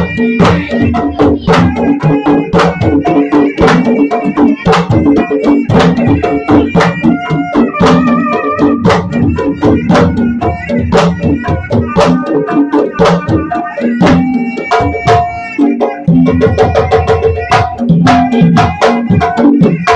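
Percussion-heavy music: fast, dense drum strokes with pitched, ringing notes held over them.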